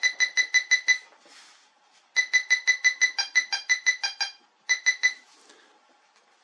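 Quest XPointer Max pinpointer beeping rapidly, about seven beeps a second, in three runs as a metal button is held at its tip, the pinpointer signalling a target close by. Partway through the middle run the beeps change pitch.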